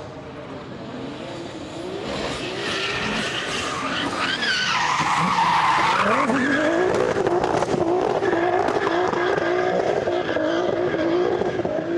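Tuned Nissan GT-R drift car's twin-turbo V6 revving hard as the car slides sideways, tyres squealing and skidding. The engine note rises and falls with the throttle and gets louder from about four seconds in as the car comes close.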